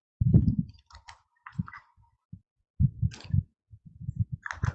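Soft, low, irregular thumps, with a few faint higher clicks between them.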